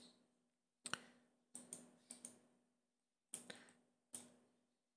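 Quiet computer mouse clicks, about five bursts, several of them quick double clicks, over a faint steady low hum.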